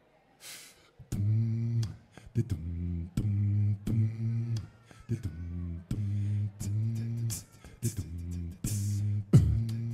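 Beatboxing: a hummed vocal bass line in short repeated low notes, with mouth clicks and hissy hi-hat-like sounds. It starts about a second in, after a brief near silence.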